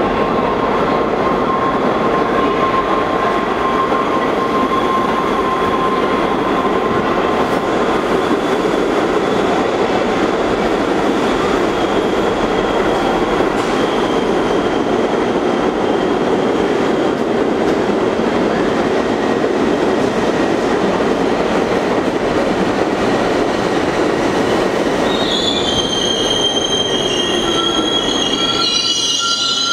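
Kawasaki R62 subway train pulling into an underground station: a loud, steady rumble of the cars running along the rails. Near the end, several high squeals set in as it slows to a stop.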